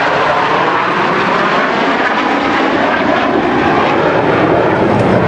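Four US Air Force Thunderbirds F-16 Fighting Falcon jets passing overhead together, their jet engines making a steady, loud rushing noise.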